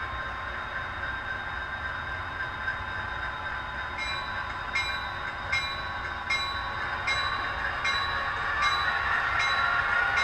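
Model GP40 diesel locomotive's sound decoder playing a diesel engine sound through its small speaker, running steadily and building louder near the end as the locomotive moves off. From about four seconds in, a light click comes at an even beat of about one every 0.8 seconds.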